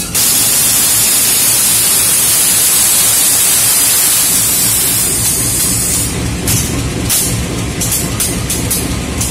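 Loud, steady hiss of compressed air venting from the air system of a CC 201 diesel-electric locomotive, over the low drone of its idling diesel engine. About six seconds in the hiss eases and a steady beat of music comes in.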